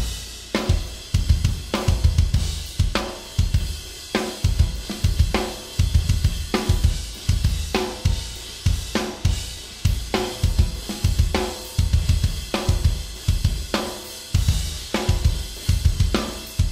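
Raw, unmixed studio multitrack of a metal drum kit played back soloed, starting suddenly: pounding double-kick drum patterns with snare and cymbals, recorded live with only gates on the toms and snare.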